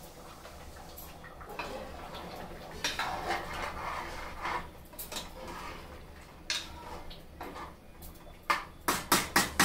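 Metal utensil scraping and clinking against a cooking pot as mutton gravy is stirred while it reduces, with a quick run of sharp clinks near the end.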